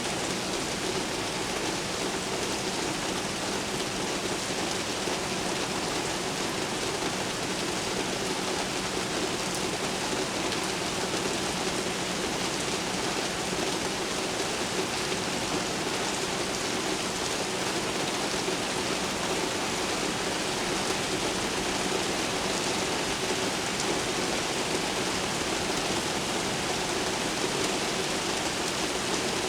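Steady rain, an even hiss without a break, with a faint low steady hum underneath.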